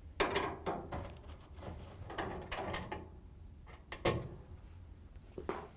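Irregular clicks, knocks and rattles of a nut driver and screws being worked against a dryer's sheet-metal front bulkhead and cabinet, as its screws are taken out, with the sharpest knock about four seconds in.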